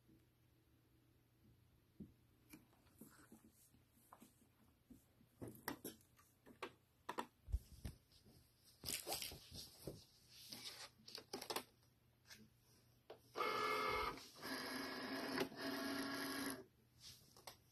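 A Cricut cutting machine's motors running steadily for about three seconds near the end, with a brief break, after a run of scattered clicks and knocks from handling the machine and its parts.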